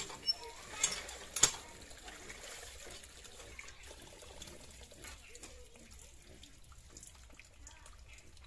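Cast-iron hand pump worked by hand, its handle clanking sharply four times in the first second and a half, then faint sloshing and splashing of water as fish is rinsed by hand in steel pots.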